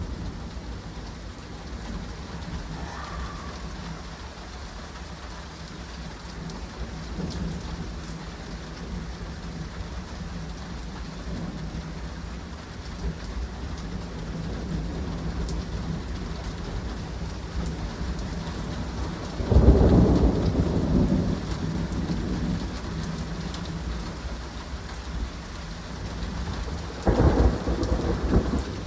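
Steady rain falling, with a sudden loud clap of thunder about two-thirds of the way in that rumbles on for a few seconds, and another clap near the end.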